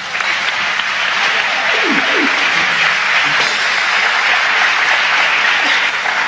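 Large audience applauding, steady and dense, beginning as the recitation stops and starting to ease off near the end.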